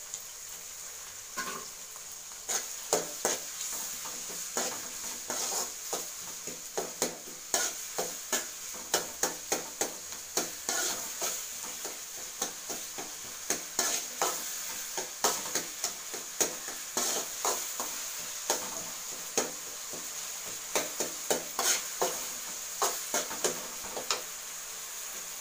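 Steel ladle stirring and scraping onion-tomato masala in an aluminium kadai, clicking repeatedly against the pan, over a steady sizzle of frying in oil. The stirring starts about two and a half seconds in, as ginger-garlic paste is fried into the onions and tomatoes.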